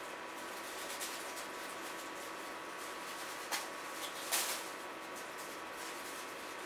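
Room tone in an empty small room: a steady hiss with a faint hum, broken by two brief noises about halfway through, the second a little louder and longer.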